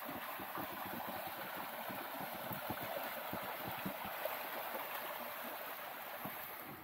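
Small woodland stream running over stones: a steady babbling rush with little gurgles.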